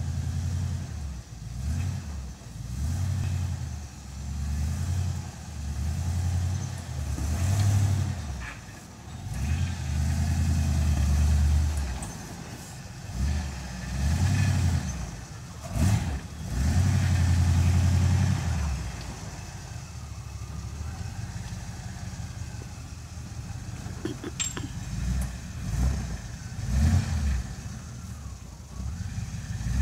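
Jeep CJ-5's engine revving in repeated pulses as it crawls over rocks, throttle going on and off every second or two, then running lower and steadier in the last third. A sharp knock sounds about halfway through.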